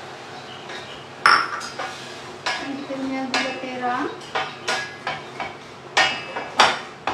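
Stainless steel saucepan handled on a gas hob and stirred with a wooden spatula: irregular sharp knocks and clinks of wood and metal, about eight in all, with a short pitched tone near the middle.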